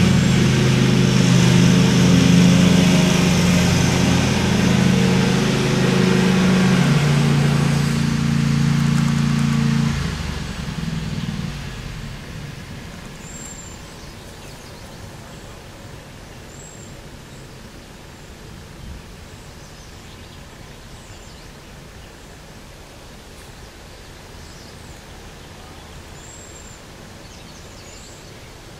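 A motor vehicle engine runs loudly and steadily, shifts pitch once, then fades away after about ten seconds. What remains is quiet outdoor ambience with a few short, high bird chirps.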